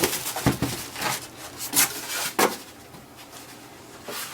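Cardboard box and packing material being handled: a few sharp knocks and rustles in the first couple of seconds, then quieter handling.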